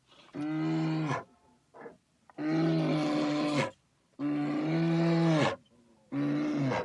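An animal calling four times, each call drawn out for about a second at a steady pitch, with short pauses between calls.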